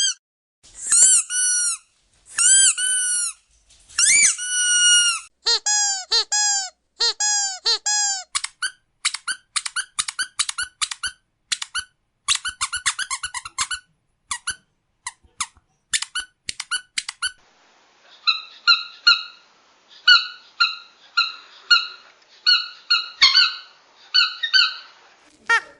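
Squeaky dog toys squeezed over and over: long, drawn-out squeaks for the first few seconds, then shorter, lower squeaks, then a quick run of short squeaks. From about eighteen seconds in, a different squeaker sounds in quick pairs over a faint hiss.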